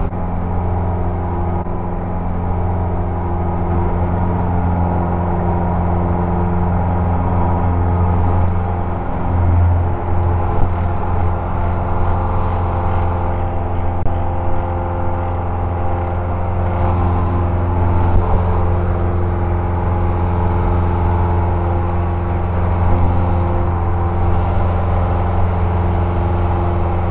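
Continental O-470 six-cylinder engine and propeller of a 1957 Cessna 180 running steadily at full takeoff power during the climb-out, heard from inside the cabin as a loud, even drone.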